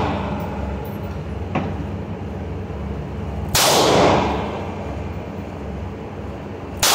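Two shots from a 9mm semi-automatic pistol about three and a half seconds apart, the second right at the end. Each is a sharp bang followed by a long echoing decay off the concrete walls of an indoor range. A faint sharp click comes between them, and a steady low hum runs underneath.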